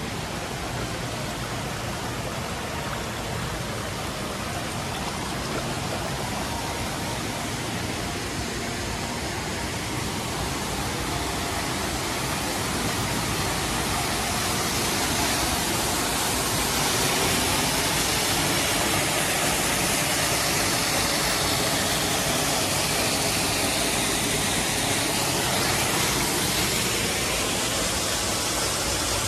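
Indoor water feature: a rock waterfall splashing into a pool, a steady rushing that grows louder about halfway through.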